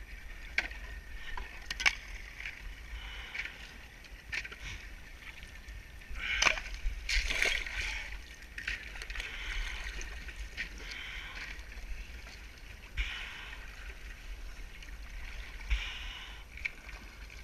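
Water sloshing and splashing around a wading bather, with sharp cracks and clinks of thin pond ice being broken up and pushed aside. The loudest cracking comes about six to eight seconds in.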